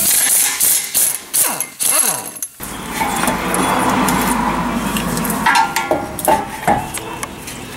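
Impact wrench hammering on a 19 mm brake caliper bracket bolt for about two and a half seconds, its pitch sliding up and down near the end. It then stops, giving way to a lower, quieter hum with a few metallic clinks as the caliper is handled.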